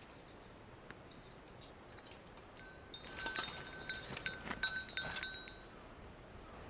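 Light metal objects clinking and ringing: a rattling cluster of small strikes with a short metallic ring, starting about three seconds in and lasting about two and a half seconds.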